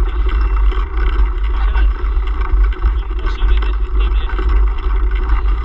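Heavy wind buffeting on the camera microphone of a moving mountain bike, a steady low rumble and rush, with a man's voice talking faintly underneath.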